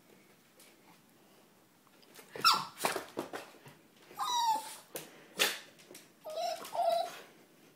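Boston terrier giving a run of short, high barks and yips, excited and begging for a toy. The calls start about two seconds in and come about six times, some sliding down in pitch.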